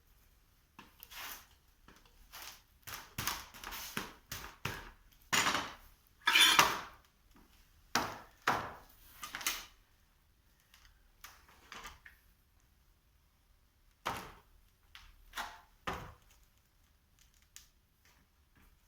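Irregular knocks, clinks and short scrapes of metal tools and parts being handled during hydraulic cylinder repair work. The strikes come in an uneven run for the first dozen seconds, with the loudest, a longer scraping clank, a little past the middle of that run. A few more knocks follow after a pause.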